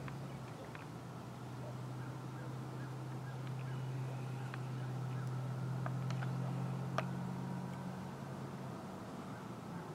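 A distant engine's steady low hum, joined by a second slightly higher hum about halfway through, with faint scattered ticks and one sharp click about seven seconds in.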